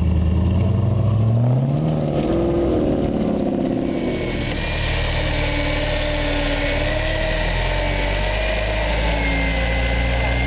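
Off-road 4x4 engine revving, its pitch rising over the first two seconds, then running steadily under load with a higher wavering whine from about four seconds in.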